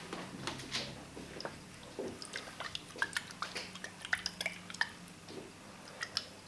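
Irregular small plastic clicks and taps from handling an aquarium ammonia test kit's tube and reagent bottles.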